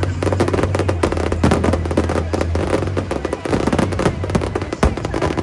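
Aerial fireworks going off in a dense, rapid barrage of bangs and crackling, many bursts a second.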